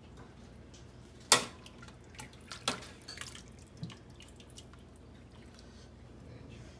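Metal ladle scooping broth from a large aluminum stockpot, with liquid splashing and dripping. A sharp clink of ladle against pot about a second in is the loudest sound, a second clink comes before the three-second mark, and smaller taps follow.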